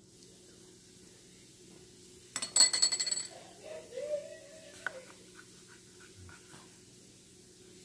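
A utensil clinking against a bowl in a quick run of sharp, ringing clinks lasting under a second, followed by a few faint ticks.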